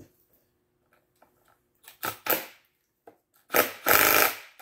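Handheld power driver tightening a threaded-rod clamp on a glue-up: two short blips of the trigger about two seconds in, then a longer run near the end.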